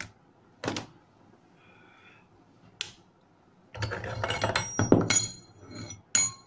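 Steel pieces being handled on a heavy steel plate: a few sharp knocks, then about two seconds of metal clattering and scraping with a high ring, and another sharp knock near the end.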